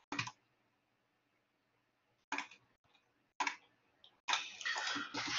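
A few faint, short computer mouse clicks, about two and three and a half seconds in, with near silence between them, and a soft hissing noise near the end.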